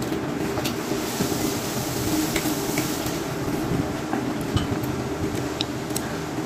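Chopsticks clicking and tapping against bowls, a handful of short sharp clicks, over a steady mechanical hum.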